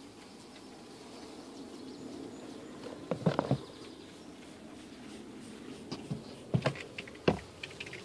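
A mass of honey bees humming steadily in a plastic storage tote full of cut-out comb. Sharp plastic knocks and clatters come about three seconds in and again near the end, as the tote's lid is handled.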